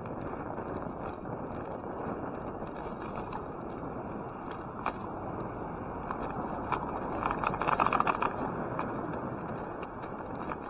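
Steady rolling and wind noise of a bicycle on an asphalt road, with scattered light clicks. About seven seconds in, a van overtakes: its noise swells and then fades as it pulls ahead.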